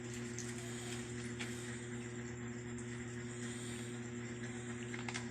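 Steady low mechanical hum with a thin high whine over it, like a motor running, with a few faint clicks.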